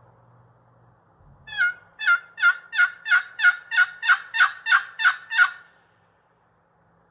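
Wild turkey yelping: about a dozen evenly spaced notes, roughly three a second, each breaking downward in pitch, over about four seconds.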